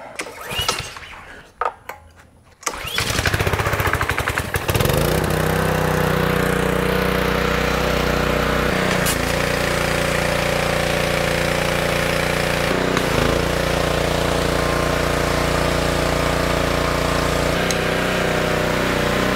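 Small 187 cc Honda engine of a gas pressure washer pull-started; it catches about three seconds in, revs up and settles into a steady run. Its note shifts briefly a few times while running.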